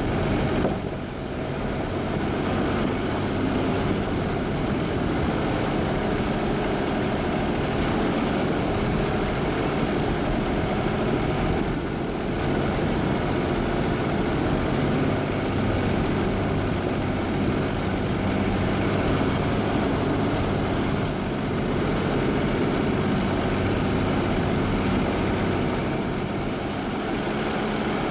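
A Jeep driving, its engine running steadily under continuous road noise.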